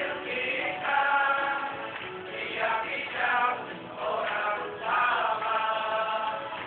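A campaign song sung by many voices together, long held notes moving from one pitch to the next about every second.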